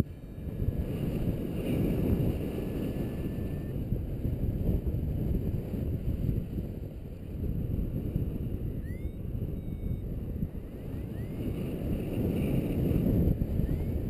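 Wind buffeting the camera microphone in flight under a paraglider: a rough, gusting low rumble that rises and falls.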